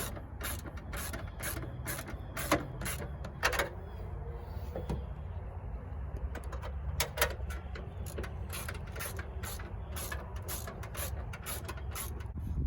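Ratchet wrench clicking at about two strokes a second as a spoiler mounting bolt is worked on the car's trunk lid, pausing for a few seconds midway before starting again, over a steady low background rumble.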